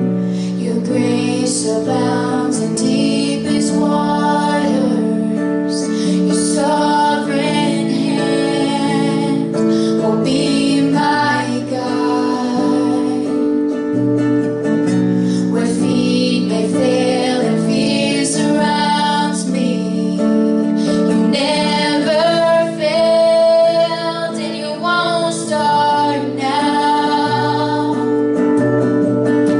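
Live song: female vocals with acoustic guitar accompaniment.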